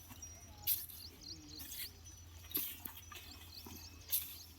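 Small birds chirping repeatedly in short high notes, over a steady low hum. Three short, sharp swishes stand out as the loudest sounds, about a second, three seconds and four seconds in.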